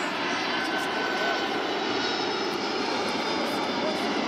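Jet engines of a twin-engine airliner on short final approach to land: a steady rush of jet noise with a faint high whine.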